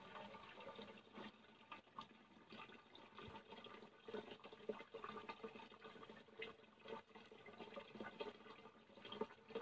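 Faint water splashing and pouring in irregular spurts, as during a bath.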